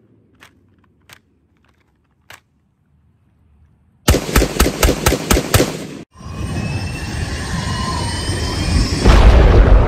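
An AR-15-style rifle fired in rapid succession, about eight shots in two seconds, after a few faint clicks. The rifle fire cuts off suddenly and gives way to an intro sound effect: a rising whoosh with climbing tones, ending in a loud boom near the end.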